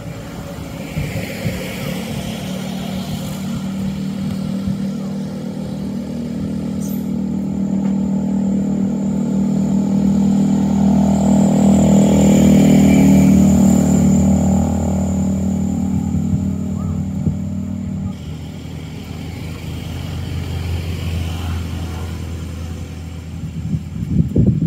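A motor vehicle's engine running steadily nearby, growing louder toward the middle and then fading, with a brief louder jumble of sound just before the end.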